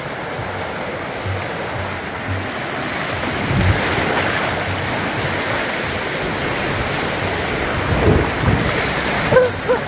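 River water rushing and splashing, growing louder from about three seconds in, with a few low rumbles.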